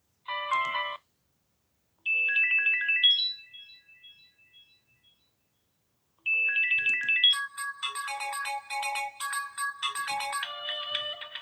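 Stock ringtones of a Samsung GT-I5500 Galaxy Europa phone playing one after another. A brief snippet is followed by a short melodic phrase that fades out. After a pause, a new, busier electronic melody starts about six seconds in and carries on.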